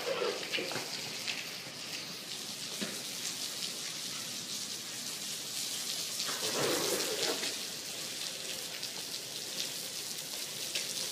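Steady rain falling, a dense patter of drops, with a brief muffled sound about six seconds in.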